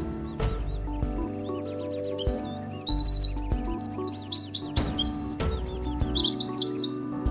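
A songbird singing a long, varied song of rapid warbling trills and chirps, which stops near the end, over background music.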